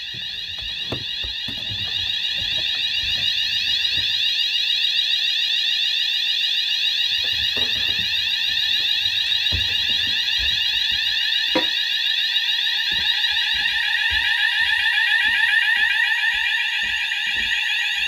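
Fire alarm sounders of a Notifier/Hochiki fire alarm system sounding continuously, a high-pitched tone with a rapid warble, growing louder over the first few seconds. The system is in fire after a smoke detector was set off in a test.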